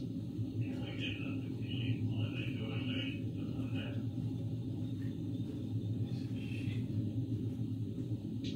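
A steady low hum throughout, with faint, indistinct mid-pitched sounds about one to four seconds in.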